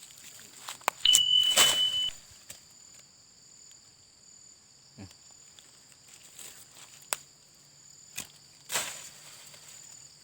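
Insects, crickets or cicadas, drone steadily on two high notes, with a brief steady whistling tone about a second in. Several sharp rustles and crackles break in, the loudest near the start and others at intervals.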